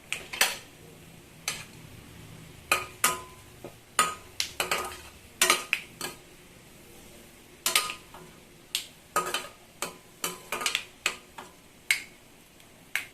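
A metal spoon stirring in a kadai, knocking and scraping against the pan in irregular sharp clinks with a short metallic ring, while vadagam is tempered in hot oil.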